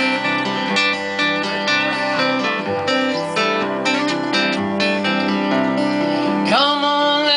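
Acoustic guitars strumming the intro of a country song over a bass guitar line. Near the end a singing voice comes in.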